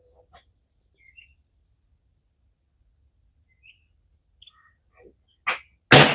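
Small birds chirp faintly now and then. A short sharp knock comes near the end, and just after it a single .22 LR shot from a Tikka T1x bolt-action rifle cracks out with a brief ringing tail.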